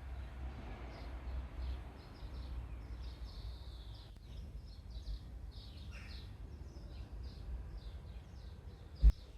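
Small birds chirping over and over against a low steady rumble, with a single sharp knock near the end.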